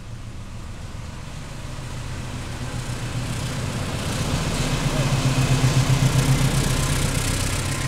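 A CC 206 diesel-electric locomotive runs slowly past close by. Its diesel engine gives a low, pulsing drone that grows steadily louder as it approaches and comes alongside.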